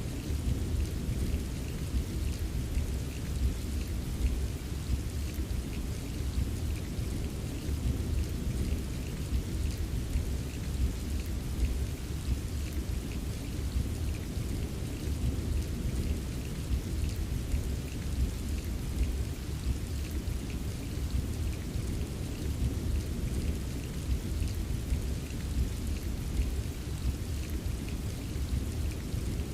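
Steady rain ambience: an even wash of rainfall with fine patter of drops and a constant deep rumble underneath, unchanging throughout.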